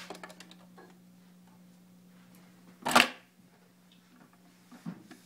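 Panasonic SE-1318 console record player running: a steady low hum with small mechanical clicks, and one loud clunk about three seconds in.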